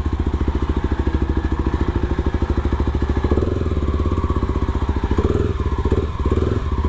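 Yamaha WR155R single-cylinder four-stroke engine at low revs through an FMF Powercore 4 exhaust, a steady run of low, even exhaust pulses as the bike rolls slowly. The sound dips briefly a couple of times near the end.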